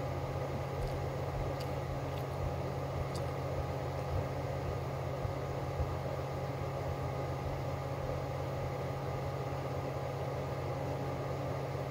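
Steady mechanical hum of a running room appliance, even in level, with a low drone and a fixed higher tone. A few faint ticks come in the first few seconds.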